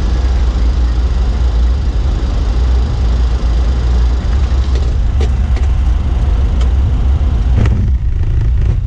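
Flight-deck noise of a Boeing 737-300 rolling out on the runway after touchdown: a loud, steady, heavy rumble with a rushing noise over it. A few sharp clicks come between about five and eight seconds in, and the rushing noise drops away near the end.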